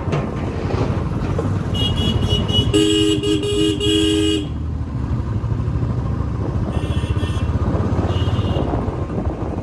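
Royal Enfield Classic 350's single-cylinder engine running steadily while riding. A vehicle horn honks from about two seconds in, breaking into quick toots before stopping a little past four seconds, and fainter horn toots come twice later.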